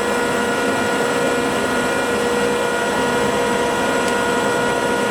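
Jones & Lamson turret lathe running steadily under power, a constant mechanical hum with a steady high whine from its drive.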